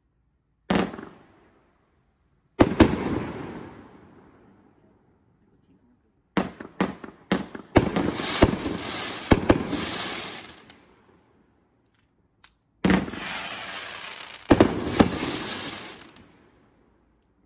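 A Red Lantern 'Caged Rage' 500-gram fireworks cake firing its aerial shots. There are single sharp bangs about a second in and again two seconds later, then a quick run of bangs. Twice after that, bursts are followed by several seconds of dense crackling that dies away.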